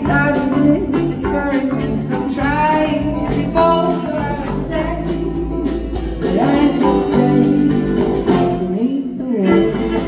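A live band playing a country-style song: a singer holds wavering, vibrato notes over guitar and other instruments, with a steady drum beat.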